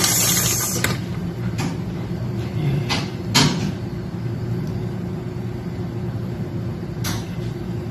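Steady low machine hum with a few short clicks and knocks.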